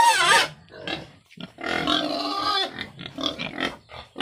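Pigs squealing and calling, hungry and waiting to be fed. A pitched squeal comes right at the start, a longer, harsher squeal about two seconds in, and short calls near the end.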